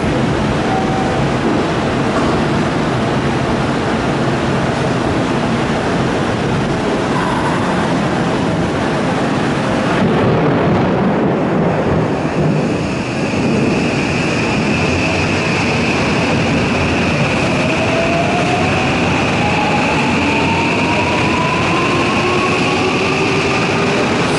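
An electric commuter train pulling out of the platform over a steady rushing noise. About halfway through a steady high tone sets in, and from about two-thirds of the way its traction motors give a rising whine as it gathers speed.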